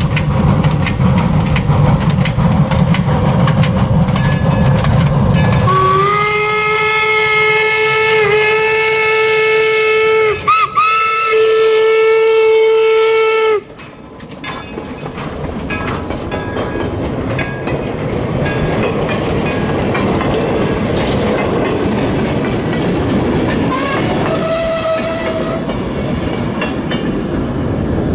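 4-4-0 steam locomotive working past with a heavy low rumble, then sounding its steam whistle in a long blast, broken once briefly and resumed, that cuts off abruptly about halfway through. After that its passenger cars roll by, wheels clicking over the rail joints.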